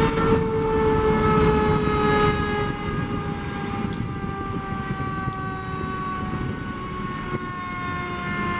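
Fire engine siren sounding one long tone that falls slowly and steadily in pitch, the way a mechanical siren winds down, over the low rumble of traffic and engines.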